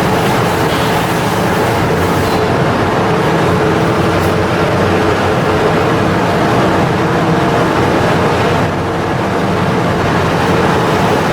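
Large machinery running steadily: a continuous mechanical drone with a low hum and rumble, easing slightly for a moment near the end.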